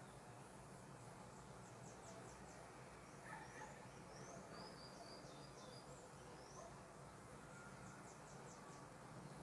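Near silence with a faint low hum, and faint birds chirping in the background: short quick trills and a run of quick rising chirps.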